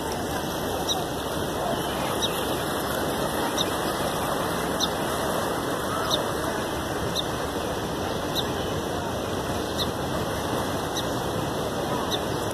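Swollen floodwater rushing past in a steady, even roar of moving water, with faint high ticks about once a second.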